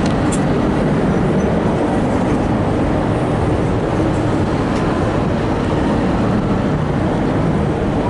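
Passenger carriages of a locomotive-hauled V/Line train rolling past as the train departs: a steady rumble of steel wheels on rail with a few faint clicks.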